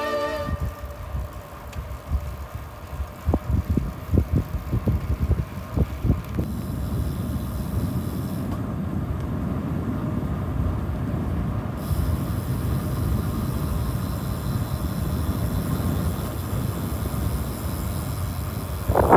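Wind buffeting the microphone over a low steady rush of road noise, as from riding. Irregular gusty thumps come in the first few seconds, then the rush settles and runs steadily.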